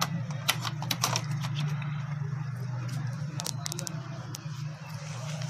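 Light clicks and taps from a TV main board being handled and set down on its sheet-metal chassis: a quick cluster in the first second and a few more around the middle, over a steady low hum.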